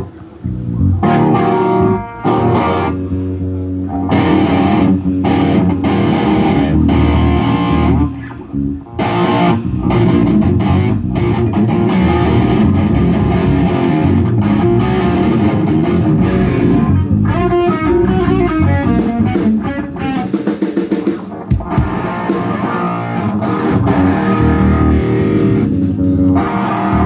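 Live rock band playing an instrumental passage: electric guitar over bass and drum kit, with brief stops about 2 and 8 seconds in.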